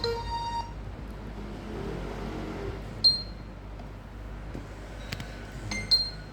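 A Nokia 6100 ringtone from a Nokia 3110 classic's speaker plays its last stepped notes and stops just under a second in. Then come sharp clicks with a brief high ring: one about 3 s in and another near the end, with a few faint ticks about 5 s in.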